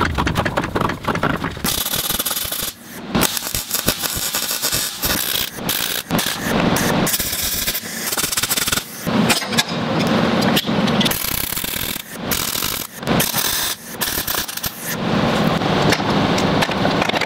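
Eastwood MIG 135 welder's arc crackling and hissing as rebar is welded to steel brackets, in several runs of a few seconds each with short breaks between them.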